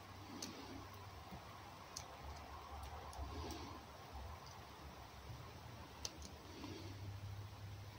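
A fox moving about on a straw-and-sawdust floor: faint scattered clicks and soft rustles over a low steady hum.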